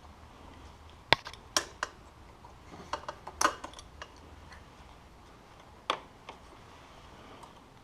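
Scattered sharp clicks and clinks of metal tools and parts being handled during work on a snowmobile exhaust: a cluster in the first three and a half seconds and one more near six seconds.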